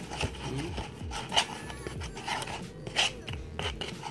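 A spoon scraping and squeaking against the inside of a foam cup as it stirs and mashes a wet mix of crushed crackers, oatmeal and juice, in repeated strokes with a couple of sharper scrapes.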